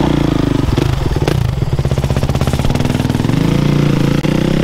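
Suzuki RM-Z450's single-cylinder four-stroke engine running under throttle with a steady pulsing note, the revs climbing near the end.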